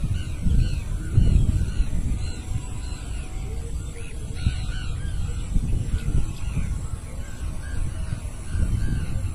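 Birds calling over and over in short, arched calls, with a low, uneven rumbling noise underneath.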